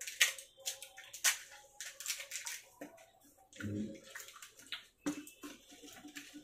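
Fuchka (pani puri) being eaten fast and close to the microphone: crisp puri shells crunching and the spiced water slurped, in many short, irregular bursts.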